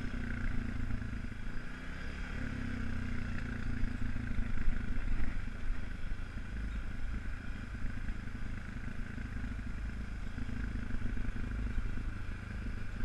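ATV engine running steadily, a low rumble with small swells in level.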